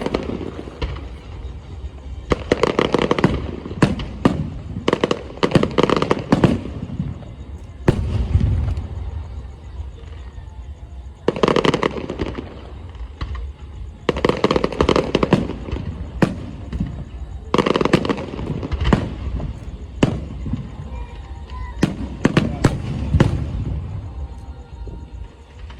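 Electronically fired aerial fireworks going off in rapid volleys of bangs and crackles. They come in clusters every few seconds, with a low rumble in between.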